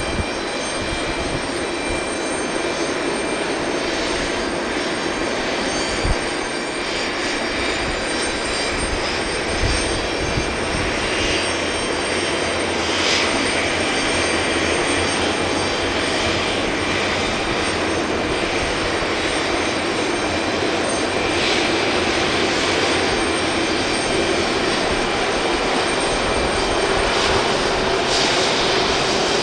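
Boeing 737-500 jet engines running on the ground: a steady high whine over a broad rushing noise, growing a little louder about twelve seconds in.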